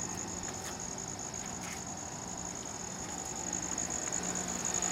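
Samsung 5,000 BTU window air conditioner running on cool, its rotary compressor and fan making a quiet, steady hum that is barely heard. A high, even, pulsing trill sits over it.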